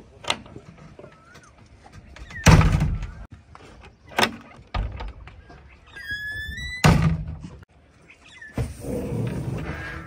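Cab door and glass windows of a JCB 3DX backhoe loader being opened and shut. There are two heavy thunks, about two and a half seconds in and again at about seven seconds, among lighter knocks and clicks. A short squeal comes just before the second thunk, and a rattling slide near the end as the front windscreen is pushed up.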